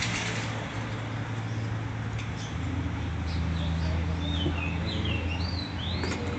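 A run of short, high squeaky calls that slide up and down in pitch, over a steady low hum.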